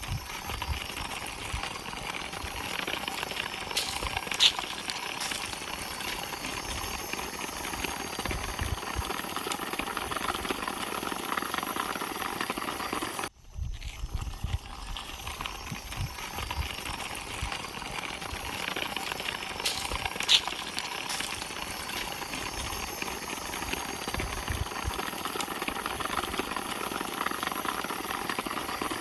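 Steady hissing outdoor-style ambience with scattered light ticks and one sharper click; the same stretch of about sixteen seconds plays twice, with a brief drop-out at the join.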